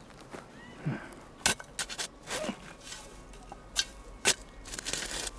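Digging in soil to plant: a series of sharp scrapes and knocks, with a longer scraping stretch near the end.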